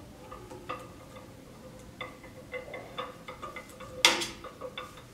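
Allen wrench tightening a small flat-head bolt in a metal clamp on a steel stand rod: a string of light, irregular metal clicks and ticks, with one louder sharp clack about four seconds in.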